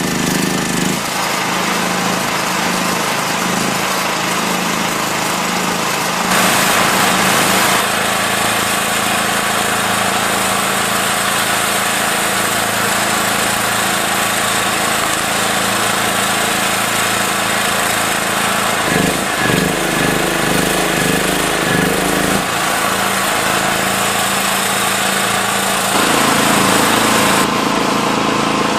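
9-ton hydraulic log splitter running: a loud, steady motor hum that shifts in tone a few times.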